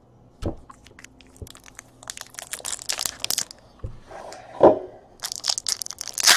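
Trading card packaging being opened by hand: plastic and foil wrappers crinkling and tearing in two crackly spells, with a few dull thumps of the box and cards being handled.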